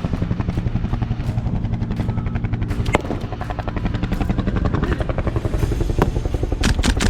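Huey (Bell UH-1) helicopter rotor beating fast and steadily. A few sharp cracks cut through it, one about halfway and a cluster near the end.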